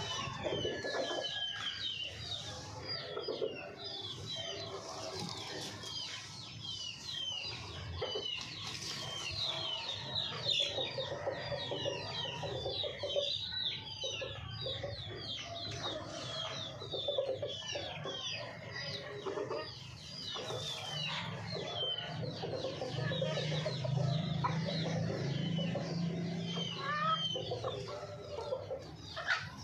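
Hens clucking over a dense chatter of short, high chirps. A low steady drone joins in for several seconds in the second half.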